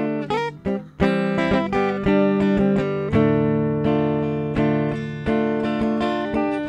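Acoustic guitar strummed in chords in an instrumental passage, with a brief drop-off about half a second in before the strumming picks back up.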